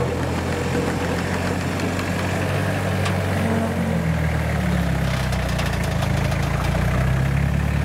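Toyota Hilux N60 pickup's engine pulling steadily as the truck crawls up a large rock step, the engine note rising about four seconds in as it takes more throttle and stays up. A few sharp clicks sound around the middle.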